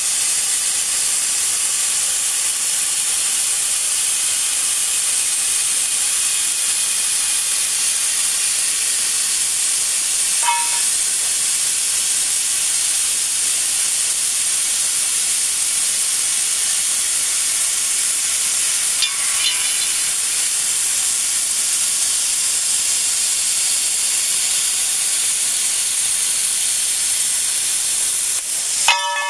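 Plasma arc of a portable CNC plasma cutter cutting steel sheet: a steady, loud, high hiss, with a brief break near the end.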